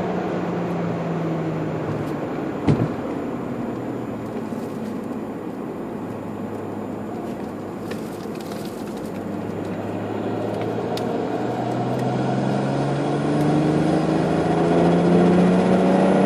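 Turbocharged 1JZ-GT straight-six engine with a TRD turbine running: the revs ease down and hold steady, then climb again over the last few seconds as it gets louder. A sharp click sounds about three seconds in.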